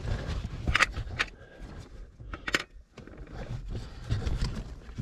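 Scraping and clinking of a person's gear against rock while clambering through a tight cave passage, with three sharp clicks about one, one and a quarter, and two and a half seconds in, over low handling rumble.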